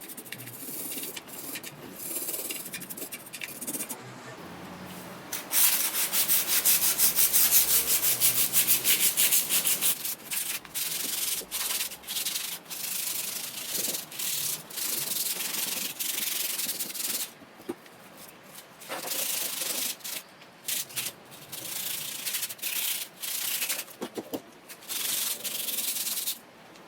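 Sandpaper rubbed rapidly back and forth by hand over the metal of a gas roller, smoothing it before painting. It starts with lighter scratching, becomes a loud, continuous rapid rubbing about five seconds in, and later goes in shorter runs of strokes with brief pauses.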